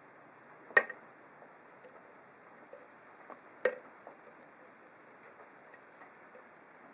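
Lock pick working the pins of an ASSA SCD 7-pin oval cylinder under tension: faint scattered ticking with two sharp metallic clicks, about a second in and just past halfway.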